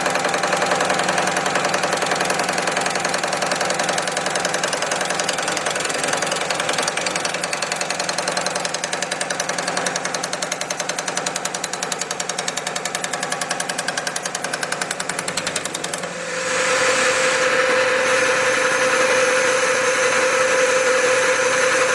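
Air-lift Pullmax reciprocating machine running beading dies at slow speed and long stroke, its ram working rapidly and evenly on 18-gauge steel sheet as a test bead is formed. About sixteen seconds in the sound dips briefly, then carries on steadier with a held tone.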